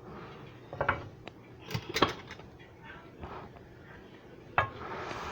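Kitchenware clattering as pots, dishes and utensils are moved about on a counter: a handful of separate knocks and clinks spread through a few seconds.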